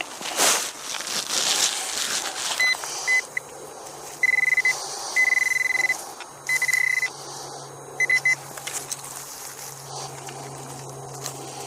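A crunching noise in the first couple of seconds. Then a Teknetics Eurotek Pro metal detector sounds a high-pitched target signal in repeated beeps, a few short ones and then four longer ones, as the coil is swept back and forth over a buried metal target, with a low steady hum underneath.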